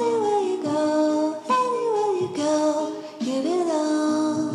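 Intro background music: a sung melody in short phrases that mostly slide downward in pitch, over a steady lower accompaniment.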